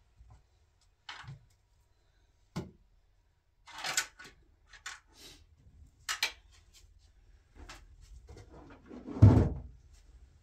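Light household handling: scattered short clicks and rustles as a plate and cut fruit are handled, then one much louder, low thump about nine seconds in.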